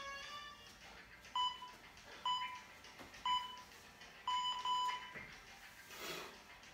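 Short electronic beeps at about one a second, three single ones then two close together, over faint background music. A brief rushing noise about six seconds in.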